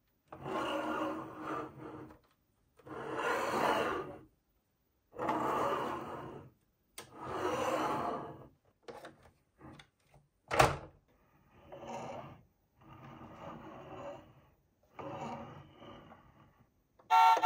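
Plastic toy camper van rolled back and forth across a tabletop by hand, its plastic wheels rumbling and scraping in four pushes of about a second and a half each. A single sharp plastic click comes about ten and a half seconds in, followed by shorter bouts of plastic rubbing and handling.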